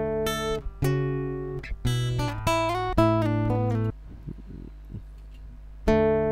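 Recorded guitar track played back through a software compressor as its threshold is lowered. A run of plucked notes and chords rings out for the first four seconds, a quieter pause follows, and a chord is struck near the end.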